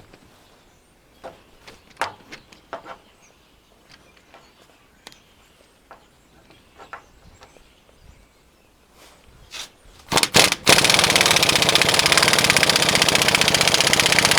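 Scattered metal clinks and knocks as the U-joint press is set back in place, then about ten seconds in a pneumatic impact wrench starts hammering steadily and fast, driving the press screw against the U-joint bearing cap.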